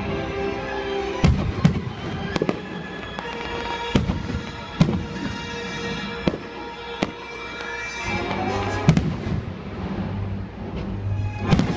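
Fireworks bursting in a string of sharp bangs, about one a second, over continuous music.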